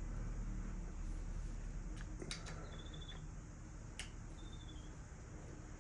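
BMX stem faceplate bolts being tightened with a hand tool: a few sharp metal clicks and two short high squeaks, over a steady low hum.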